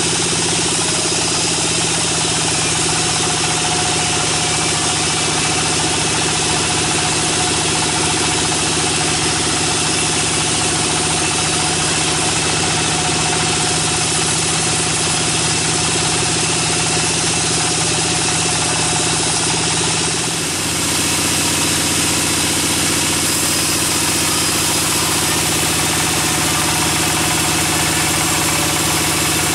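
Sawmill band saw running steadily as its blade rips lengthwise through a pine log, with the machine's drive running in a constant loud drone. The sound dips briefly and shifts slightly about two-thirds of the way through.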